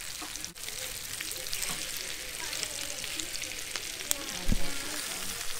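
Breadcrumb-coated lobster chunks sizzling in butter and oil in a nonstick frying pan, with the scrape and stir of a plastic spatula turning them over. A brief dull thump near the end.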